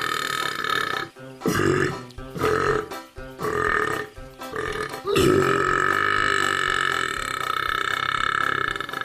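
Frog screaming in long, drawn-out, burp-like calls. One call runs on until about a second in, then come three short calls, then another long call from about five seconds in to the end.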